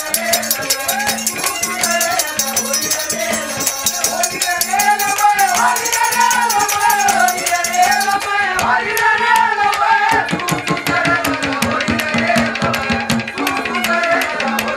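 Instrumental interlude of Haryanvi folk ragni accompaniment: a wavering melody over a steady drone, a hand drum, and fast, dense rattling percussion. The rattling thins out about eight seconds in.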